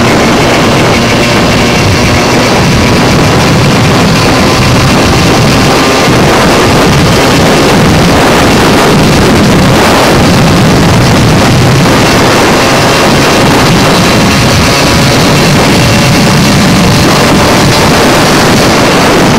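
Stock Puch Maxi-P moped's 49 cc two-stroke single-cylinder engine running steadily at high revs downhill, with heavy wind noise on the microphone.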